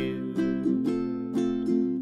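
Ukulele strummed by hand, about five chord strokes, roughly two or three a second: the closing bars of a song once the singing has stopped.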